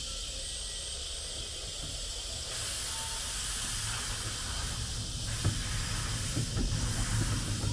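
Steam hissing from a miniature steam locomotive, getting louder about two and a half seconds in, with a low rumble underneath.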